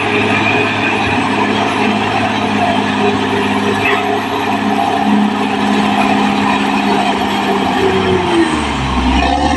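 Caterpillar D6R XL bulldozer's diesel engine running steadily under work, its note dipping briefly in pitch near the end.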